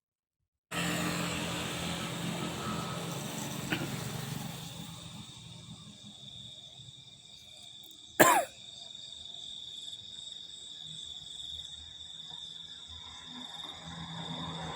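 Outdoor ambience that starts abruptly under a second in: a steady high-pitched whine over a low hum. One sudden, short, loud sound about eight seconds in.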